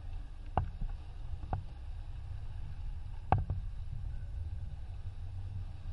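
Steady low rush of wind and water from a sailing yacht under way, with a few sharp knocks from gear on deck.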